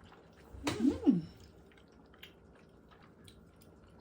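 A short vocal call, about a second in, whose pitch rises and falls twice, followed by faint scattered clicks.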